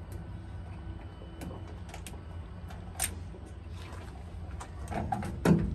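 Scattered small clicks and metal rattles as wing nuts are spun off by hand and the sheet-metal cover of an Ag Leader grain moisture sensor on a combine is worked loose, over a steady low hum. The sharpest click comes about three seconds in, with a few heavier handling knocks near the end.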